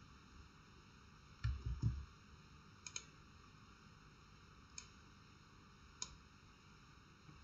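Faint computer mouse clicks: a few scattered single clicks and one quick double click. About one and a half seconds in come two dull low thumps, the loudest sounds.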